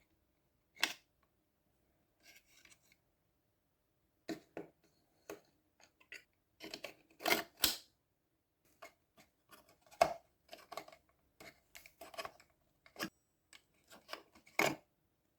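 Hand work with tools: a string of irregular sharp clicks and snips mixed with short scraping strokes, with the loudest clicks about a third, two thirds and nine tenths of the way through.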